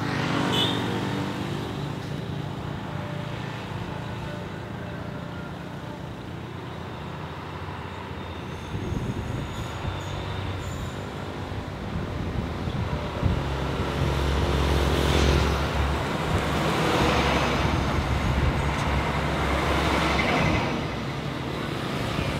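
Road traffic going by: motorcycles passing close at the start, a quieter stretch, then a low truck engine rumble that builds from about halfway and stays the loudest sound as more motorcycles pass near the end.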